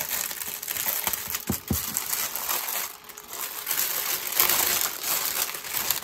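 Clear plastic packaging crinkling and rustling as hands pull open a bag of small diamond-painting drill packets, with a brief lull about halfway through.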